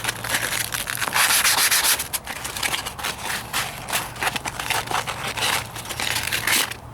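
Hand sanding of body filler on a truck's wheel arch: sandpaper on a sanding block scraped back and forth in quick, uneven strokes, a dry scratchy rasp. A faint steady low hum runs underneath.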